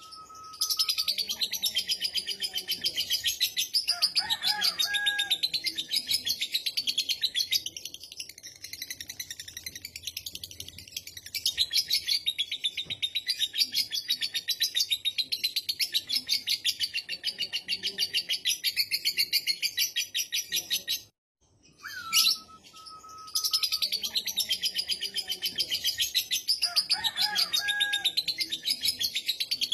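Lovebird's long ngekek: a continuous, very rapid chattering trill of repeated chirps that stops briefly about 21 seconds in and then starts again.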